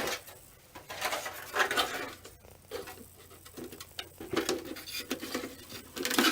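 Irregular light knocks, clicks and rustling as plastic headlight parts are handled and set down on a workbench.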